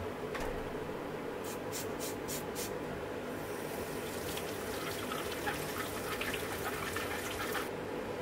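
A few quick clicks about two seconds in, then a kitchen tap running and splashing as a lemon is rinsed under the stream. The water is turned off shortly before the end.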